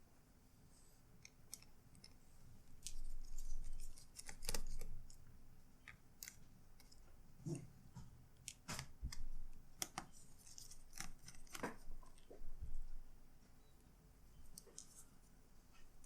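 Irregular small clicks, taps and scrapes of hands working on the plastic and metal parts of an opened laptop, with bunches of handling noise at a few points.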